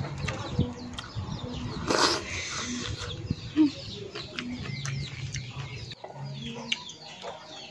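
Small birds chirping over and over and chickens clucking, with a brief loud rustling noise about two seconds in.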